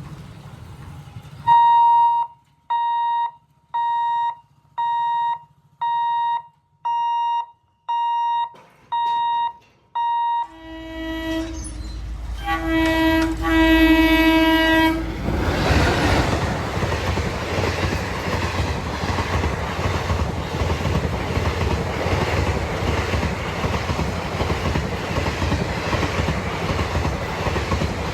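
A warning beeper sounds about once a second, nine times. Then an Indian Railways WAP-4 electric locomotive's horn blows several loud blasts as it approaches, the last about two seconds long. The express train then passes through the level crossing with a steady, rhythmic clatter of wheels over the rail joints.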